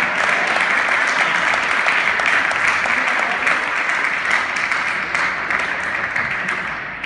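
Audience clapping in a large hall after a point in a table tennis match, the applause thinning out over the last couple of seconds.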